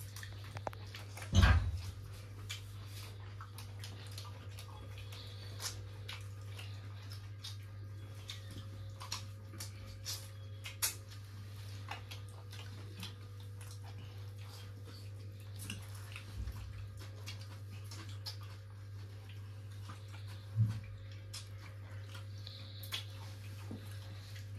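Eating sounds: small wet clicks and smacks of chewing and handling food over a steady low hum, with a dull thump about a second and a half in and another about twenty seconds in.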